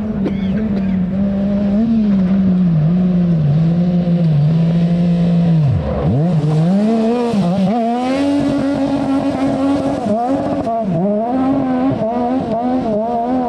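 Rally car engine under hard driving, the revs rising and falling with lifts and gear changes, dipping sharply about six seconds in and then climbing again.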